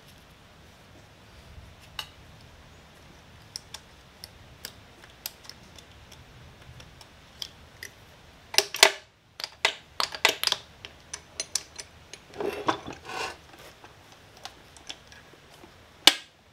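Steel gears, shafts and shift rails of an opened Toyota E153 transaxle clicking and clinking as they are worked loose by hand. The clicks are scattered at first, turn into a busy run of clinks and scraping past the middle, and end with a sharp click.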